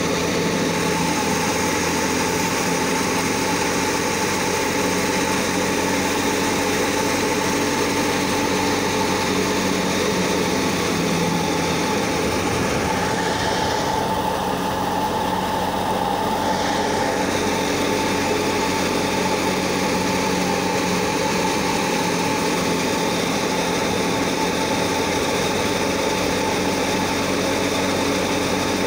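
A belt-driven wheat thresher running with a steady, even mechanical drone while wheat sheaves are fed into it.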